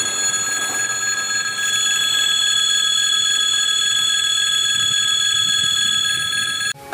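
Electric warning bell of a railway pedestrian crossing signal ringing continuously in one steady metallic ring, sounding while the crossing shows red for closed. It cuts off abruptly near the end.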